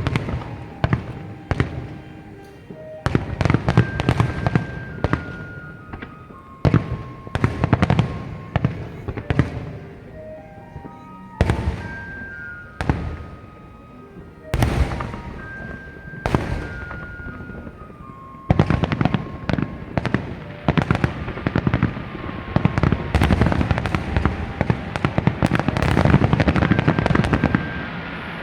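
Fireworks display: aerial shells bursting one after another with sharp bangs, turning into a long, dense run of crackling bursts through the second half that dies down near the end.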